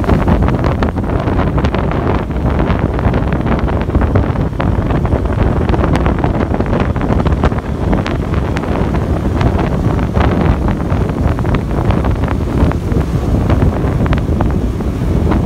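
Loud wind buffeting and crackling on the microphone of a camera moving at road speed, over a steady rumble of the vehicle and road underneath.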